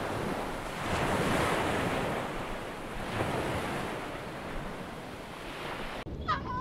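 Open-sea ambience: an even rush of water and wind, swelling about a second in and again around three seconds. Near the end the sound cuts abruptly to a quieter scene with a short, wavering emperor penguin call.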